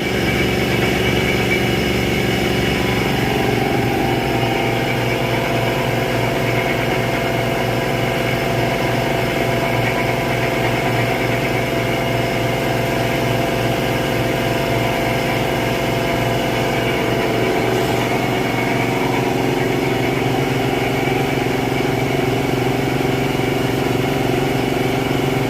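230-volt electric shop air compressor running steadily, its motor and pump working at an even pace.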